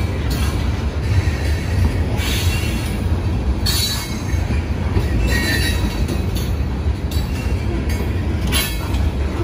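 Freight train hopper cars rolling past at close range: a steady low rumble of wheels on the rails, with brief high wheel squeals about two, four, five and a half, and nine seconds in.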